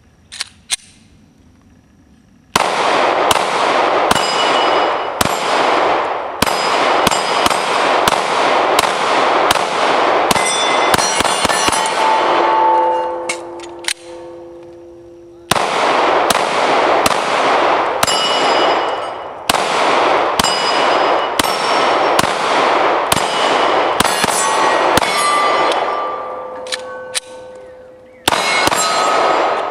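Glock 19 9mm pistol fired in rapid strings, roughly two shots a second, at steel targets that clang and ring when hit. The firing stops about twelve seconds in while the plates ring on with steady tones, starts again about fifteen seconds in, and a last burst comes near the end.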